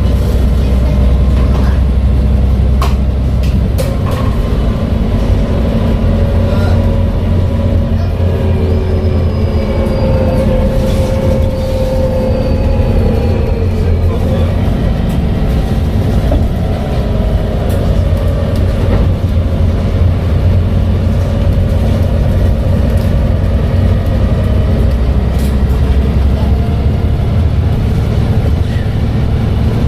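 Volvo B7TL double-decker bus running steadily, its 7-litre six-cylinder diesel droning, with whining tones from the driveline that rise and fall in pitch about a third of the way in.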